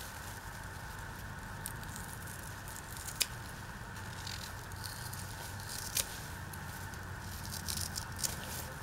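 Garden shears snipping through ginger stalks, with sharp cuts about three seconds in and about six seconds in and a few more near the end, amid the rustle of the leafy stalks being handled.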